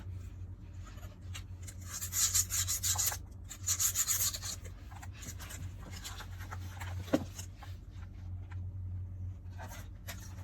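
Two short bursts of rubbing, about two seconds in and again just under a second later, with a single click a few seconds after, over a steady low hum.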